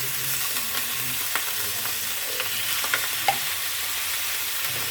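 Corned beef hash frying in a hot pan: a steady sizzle with a few sharp pops.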